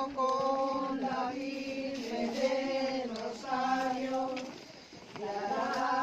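A group of women singing a hymn to the Virgin together as they walk, in long held notes, with a short break between phrases about five seconds in.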